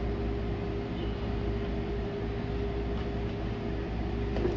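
Steady air-conditioning hum: an even low rumble with a faint steady tone running through it.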